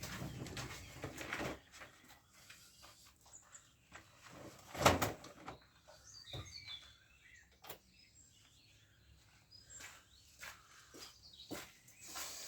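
Workshop handling noises as a scooter engine is taken out. Rustling for the first second and a half, then scattered small clicks and one sharp knock about five seconds in. Faint bird chirps can be heard behind.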